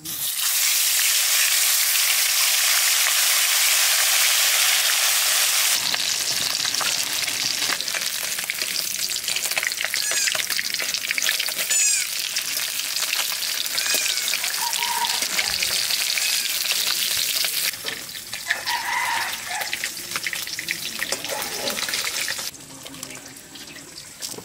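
Turmeric-coated mud fish hitting hot oil in an iron kadai, a loud sizzle that begins abruptly as they go in. It settles into a steady crackling fry, with a metal spatula scraping and turning the fish in the pan.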